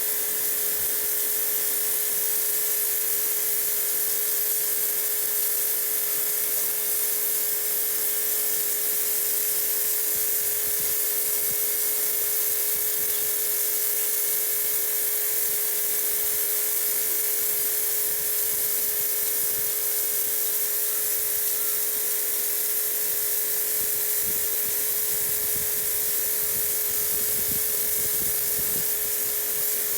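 Electric pressure washer running steadily: a constant motor whine under the hiss of the high-pressure water jet.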